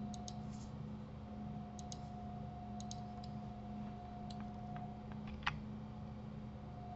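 Scattered clicks of a computer mouse and keyboard, about ten short clicks, several in quick pairs, the sharpest about five and a half seconds in, over a faint steady electrical hum.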